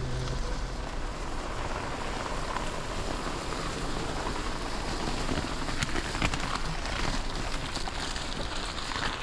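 Steady rain falling, with a few sharp taps of drops about halfway through and near the end.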